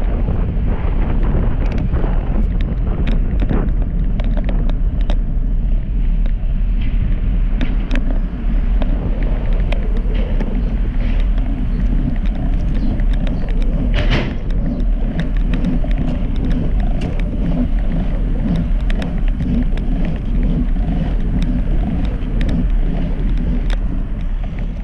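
Wind buffeting the microphone of an action camera riding on a moving road bicycle, a steady low rumble mixed with tyre noise on the pavement and scattered sharp clicks and rattles from the bike.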